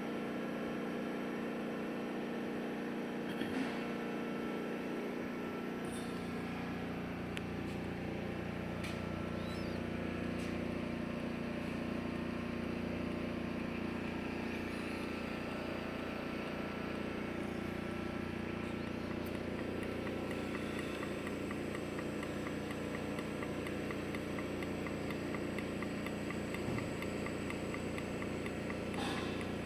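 Steady hum of an AMI 307 orbital welding power source and its water-cooling unit running, with a deeper hum joining about six seconds in.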